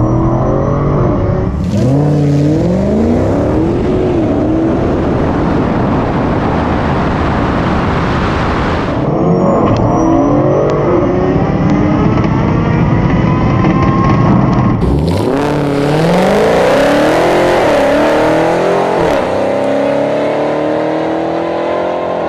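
A drag race pass heard first from inside the Tesla Model S Plaid: steady road and tyre noise under an engine note that rises and falls again and again, from the Hellcat Challenger's supercharged V8 running alongside. About two-thirds of the way through, the sound switches abruptly to trackside audio of the two cars going down the strip, with the V8 still revving.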